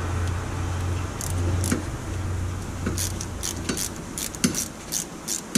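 Socket ratchet clicking and metal clinking irregularly as a stubborn small bolt on the rear hub bracket is worked loose, over a steady low hum that stops near the end.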